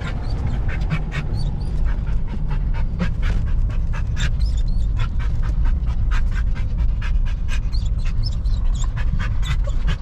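A dog panting close by in quick, irregular breaths, over a steady low rumble.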